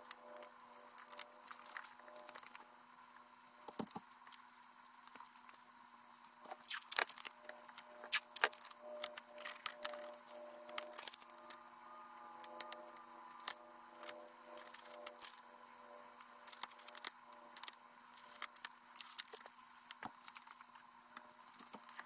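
Nitrile-gloved hands handling and smoothing a vinyl decal and masking tape on a plastic-film-covered model fuselage: irregular crinkles, taps and rustles, busiest in the middle, over a faint steady hum.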